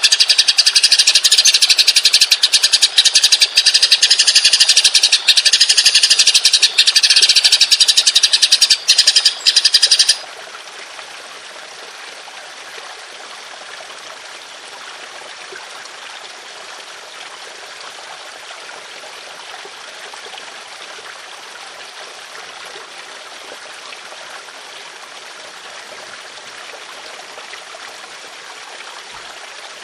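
A songbird's loud, high-pitched, rapid rolling trill, the continuous 'ngeroll' song used as tutor audio for training songbirds, runs for about ten seconds and cuts off suddenly. A steady rushing noise like a flowing stream follows.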